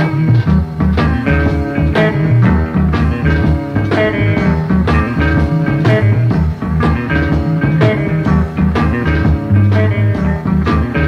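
Instrumental blues-rock jam: guitar playing over a bass line and a steady beat.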